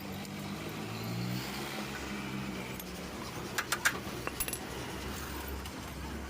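Bajaj Pulsar 150 engine running steadily and fading out after about two seconds, then a short run of sharp metal clinks from tools or chain parts a little past halfway.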